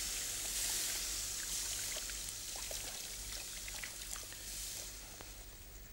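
Tap water running over hands into a metal sink during hand-washing, a steady splashing hiss that dies away near the end.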